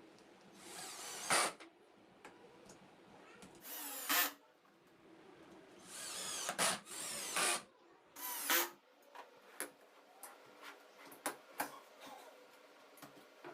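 Power drill running in four short bursts with a whining motor pitch that rises and falls, followed by a scatter of light clicks and taps.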